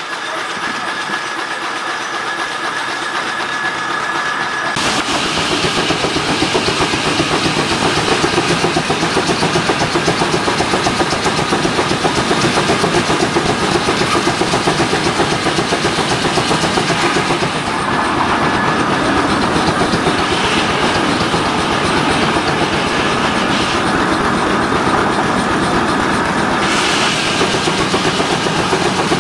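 Banting steam traction engine running. For the first five seconds it is quieter, with a thin steady tone. Then it suddenly turns loud, with fast, even exhaust beats and mechanical clatter that keep going.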